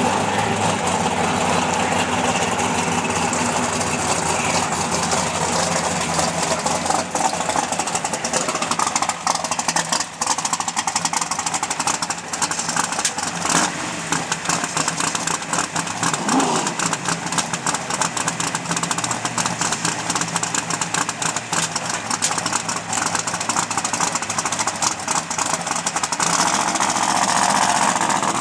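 Twin-turbo drag race car's engine idling with a choppy, uneven beat. About sixteen seconds in it is blipped once, rising and falling in pitch, and it gets louder near the end.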